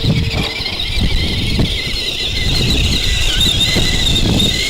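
High-pitched whine of a 64mm five-blade electric ducted fan on a foam RC delta wing in flight, wavering in pitch as it flies. Gusty wind rumbles on the microphone underneath.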